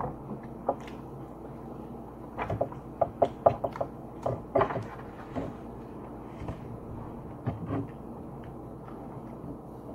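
Scattered light clicks and knocks of food and plates being handled while eating at a table, clustered between about two and five seconds in, with a few more near eight seconds.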